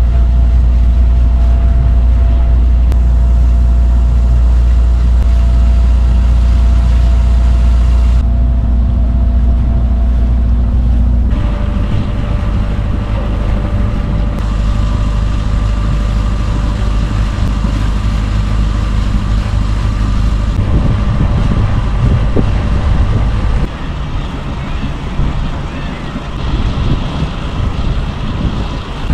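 Sailboat's inboard engine running steadily while motoring in a calm, a low hum with a steady drone above it; the sound shifts abruptly several times.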